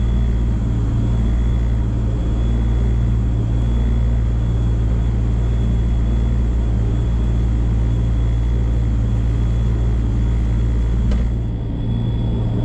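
Rotax 4-TEC 250 four-stroke jet boat engine running steadily, with a thin high whine over the low engine note. About eleven seconds in, the low end eases off slightly.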